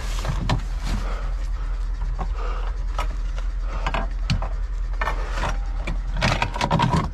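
Gear being rummaged through inside a military vehicle's rear compartment: irregular clicks, knocks and rustling of bags and equipment over a steady low hum.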